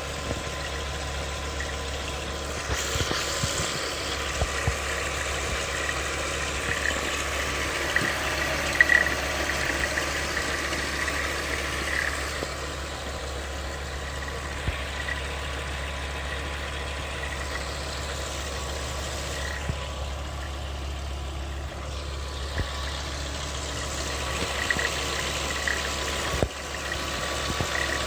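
Volkswagen Golf IV GTI's 2.3-litre VR5 engine idling steadily with scattered ticks and an on-off high whine: an odd noise that the owner wonders may be the timing chain.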